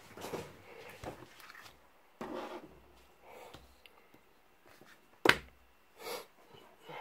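A clear plastic sheet and paper rustling and sliding on a wooden desk in several short bursts, with one sharp knock a little past five seconds in as a paper pad is set down on the sheet.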